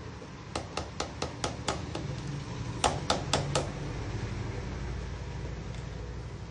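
A mixing utensil clinking against a bowl while cake batter is stirred: a quick run of light taps, then four louder ones, over a steady low hum.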